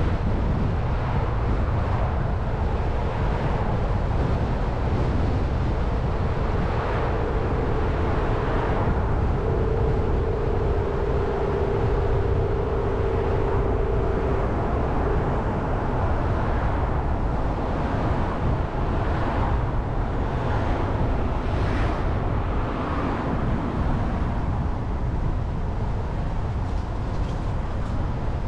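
Jeep Renegade driving on paved road: a steady rumble of road noise. A steady hum joins it for several seconds in the first half.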